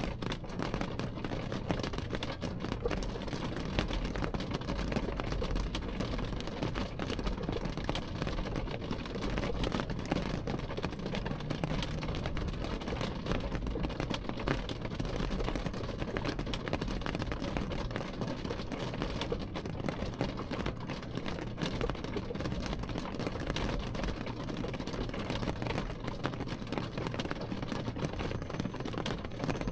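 Rain falling on a car's window glass, heard from inside the car: a steady patter of many small drop impacts over a low, constant rumble.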